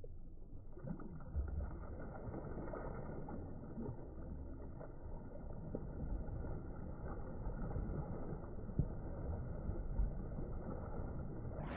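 Slowed-down sound track of a slow-motion clip: a low, muffled rumble with scattered clicks and thumps, cut off sharply above the low-middle range. Near the end it gives way suddenly to full-range sound.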